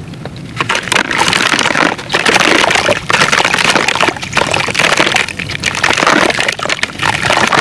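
Gritty black sand-cement being crushed and crumbled, a dense crackling crunch of many small grains and lumps breaking, in bursts with short breaks between.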